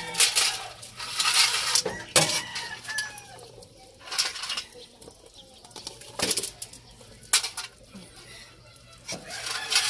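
Metal ladle clinking and scraping in a large aluminium soup pot as green beans are dropped into the boiling broth, in a series of irregular clatters. Chickens cluck in the background.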